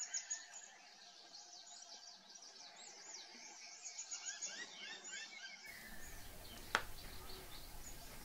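Faint chirping of small birds, many quick high notes overlapping over a light background hiss, with a single sharp click about seven seconds in.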